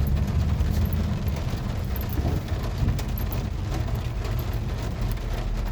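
A van driven slowly, heard from inside the cab: a steady low engine and road rumble.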